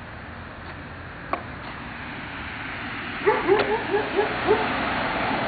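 Street traffic noise rising as a vehicle approaches, and about three seconds in a dog yapping six times in quick succession.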